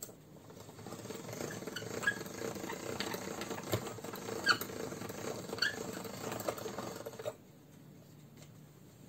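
Pasta-rolling machine running as a sheet of dough is fed through its rollers: a steady hum with several short rising squeaks. It stops abruptly near the end.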